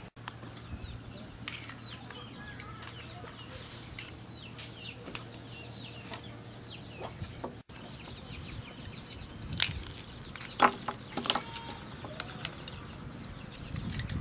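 Chickens peeping and clucking, short high chirps over a low steady hum that stops suddenly a little past halfway. Then a few sharp clicks of metal tongs against grilled shellfish shells as the meat is picked out.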